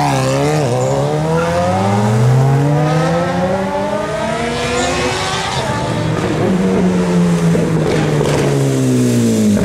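Sport motorcycle engines: one accelerates hard, its pitch rising steadily for several seconds, then another engine runs with its pitch slowly falling near the end.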